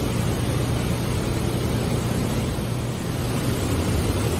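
Canal narrowboat's diesel engine idling steadily in a lock: a constant low hum under an even rushing noise.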